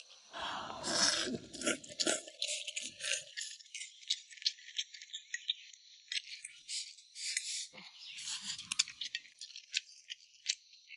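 Close-up crunchy chewing of crisp huang hou (beef aorta tubes): a dense run of small crackling clicks, louder about half a second in and again near eight seconds.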